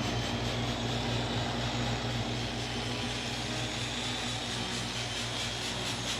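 Power polisher spinning a diamond polishing pad against a quartz slab's edge, a steady motor whine with a low hum, as the edge is polished and bevelled.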